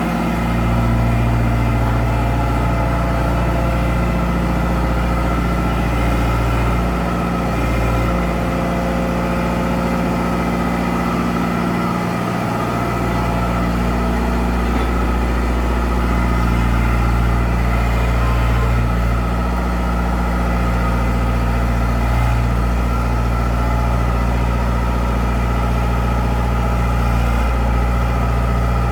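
An engine running steadily at a constant speed, with a strong low hum and a stack of steady tones above it.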